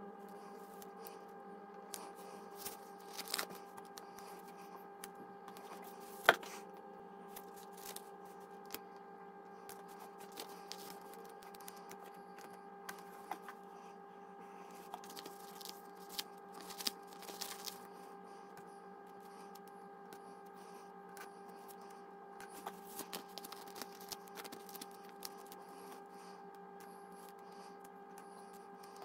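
Paper planner stickers being handled, peeled and pressed down by hand: soft paper rustles and small scattered taps, one sharper tap about six seconds in, over a steady low electrical hum.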